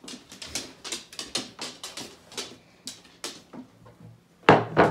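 Light clicks and knocks of crockery being handled, then a louder clack near the end as a plate is set down on a wooden table.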